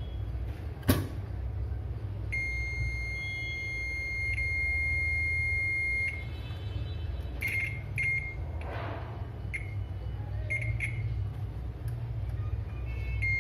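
UNI-T UT39A multimeter's continuity beeper sounding as the probes touch points on a laptop motherboard. It gives one long steady beep of about four seconds, then several short broken beeps, a sign that the rail being tested is shorted to ground. There is a sharp click about a second in and a low steady hum underneath.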